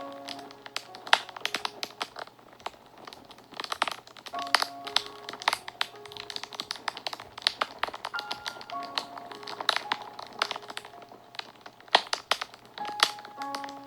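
Wood fire crackling with frequent sharp pops of varying loudness, under soft background music of short held notes that come in phrases about every four seconds.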